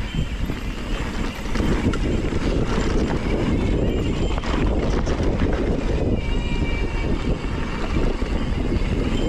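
Mountain bike descending a dirt trail: a steady rush of tyre noise and wind on the microphone, with scattered clicks and rattles from the bike over bumps. It gets louder about one and a half seconds in as the bike picks up speed.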